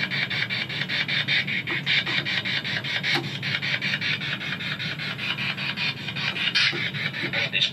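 Spirit box sweeping through radio frequencies: a steady run of evenly chopped bursts of static, several a second, used to listen for spirit voices answering a question.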